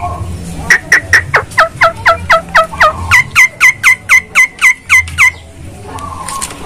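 Javan myna (jalak kebo) calling a fast, even series of about twenty short whistled notes, about five a second. Each note drops sharply in pitch. Partway through, the notes change to start with a quick upward flick.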